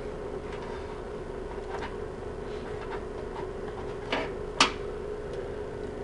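Two sharp clicks about half a second apart, the second louder, as a CPU heatsink with its 80 mm fan is handled and lined up on its retention bracket inside a desktop case, with a few faint ticks before them. A steady low hum runs underneath.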